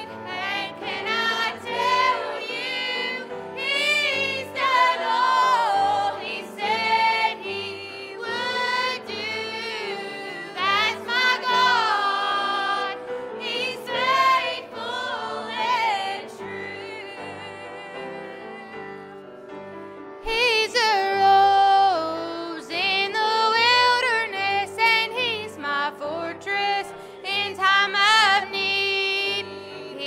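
A small group of mainly women's and children's voices singing a gospel song together, with vibrato on held notes, over a steady instrumental accompaniment. It goes softer for a few seconds past the middle, then the singing comes back louder.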